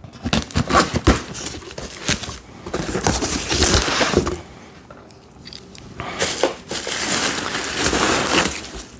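Cardboard box being opened by hand: packing tape slit and pulled, then the flaps scraping and folding back, with crinkling and rustling. The handling pauses briefly about halfway through.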